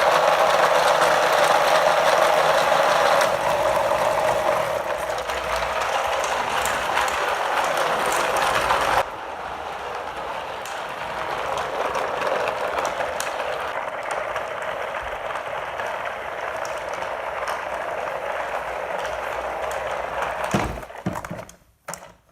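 Steady, dense mechanical clatter of a mechanism running. It drops in level abruptly about nine seconds in and stops shortly before the end.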